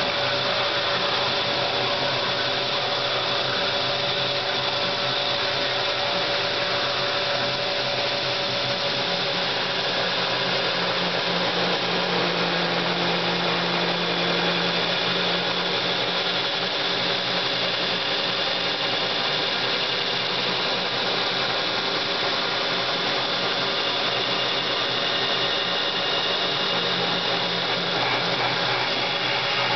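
Belt grinder running steadily while a thick 1075 carbon-steel knife blade is held against the belt, grinding its bevels before heat treatment.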